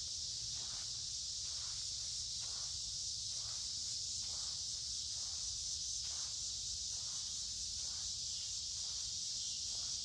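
Chorus of cicadas making a steady, high-pitched drone, with soft footsteps on the sandy, pebbly creek bed about once a second.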